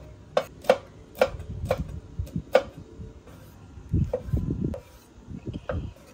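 Kitchen knife chopping on a thick wooden cutting board: a run of sharp knocks of the blade on the wood in the first two and a half seconds as shallots are cut, then duller low thumps and rubbing about four seconds in as a tomato is sliced.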